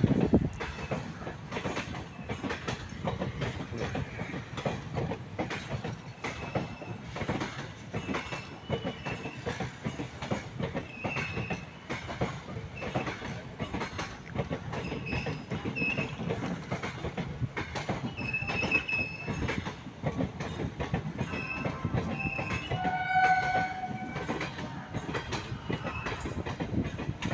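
Indian Railways sleeper-class passenger coaches rolling past, their wheels clattering over the rail joints in a steady run of clicks, with scattered brief high squeals. A short pitched tone sounds near the end.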